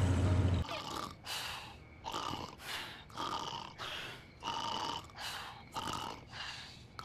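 A low rumble cuts off about half a second in. Then a cat grooming itself: a steady run of short rasping licks, nearly two a second.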